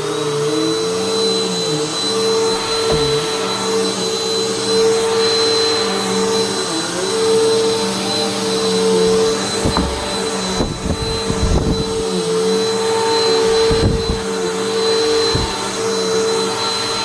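Vacuum cleaner running steadily with a high whine, its motor note wavering slightly as it is pushed about, with a few low knocks partway through.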